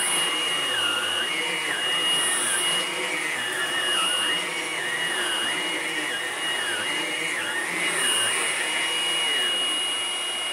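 Hoover vacuum cleaner running, its motor giving a steady high whine over the rush of air. A second, lower pitch wavers up and down about once a second as the airflow changes.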